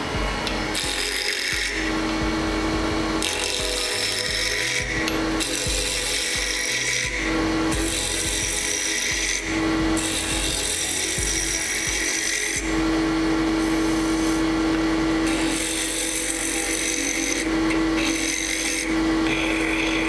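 Wood lathe running with a steady hum while a 3/8-inch detail gouge roughs down a small spinning wood blank. The gouge cuts in repeated scraping passes of a second or two, with short breaks between them, as the corners are knocked off.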